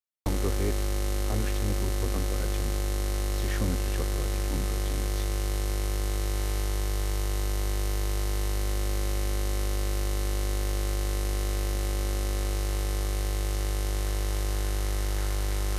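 Loud, steady electrical hum and buzz that does not change, typical of mains hum picked up by the sound system or the recording. Faint voices and a few small knocks come in over it during the first few seconds.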